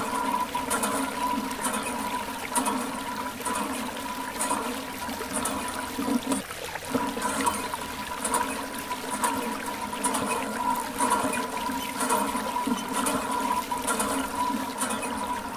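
Water streaming from a thin plastic hose and splashing onto mud-covered toy tractors, a steady trickling and splashing over a steady hum.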